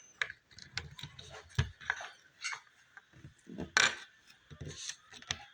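Lego bricks clicking and rattling as pieces are handled and pressed into place: a string of irregular sharp clicks, the loudest a little under four seconds in.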